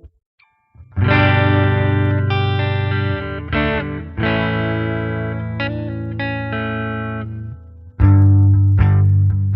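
Fender Telecaster electric guitar played through a clean Fender Twin amp model. After about a second of near silence, full chords are struck and left to ring and sustain, then changed about four seconds in. Near the end a quicker run of picked chords starts.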